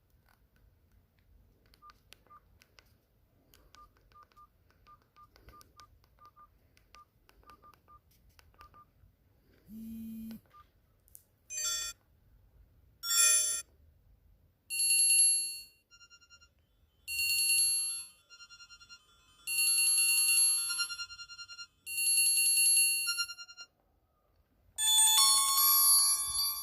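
Alcatel OT-1035A mobile phone playing short previews of its ringtones one after another, each cut off after a second or two, about seven in all. Before them come faint regular beeps and, about ten seconds in, a brief low hum.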